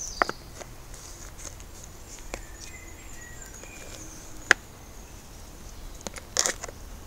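A few sharp, isolated clicks and snaps against a quiet outdoor background. The loudest comes about four and a half seconds in, and a short cluster of them comes near the end.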